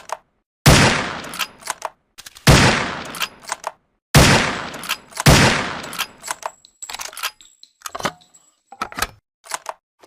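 SRP rifle sound effect: four loud gunshots, one to two seconds apart, each with a decaying tail and quick metallic clicks after it. Then comes a run of lighter mechanical clicks and clacks with a faint high whine.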